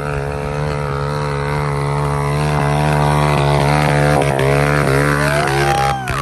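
Pit bike's single-cylinder engine working hard up a steep dirt hill, holding a high, slightly wavering pitch and growing louder as it comes closer. Near the end it revs up sharply, then drops off.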